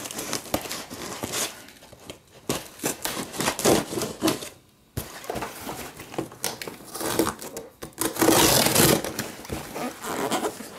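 Clear plastic packing tape being picked at and torn off a cardboard shipping box: irregular crinkling, scraping and ripping of tape and cardboard, with a longer, louder stretch about eight seconds in.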